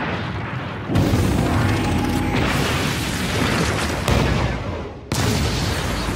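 Battle sound effects of heavy booms and crashes over music, with sudden loud hits about a second in, about four seconds in, and just after five seconds.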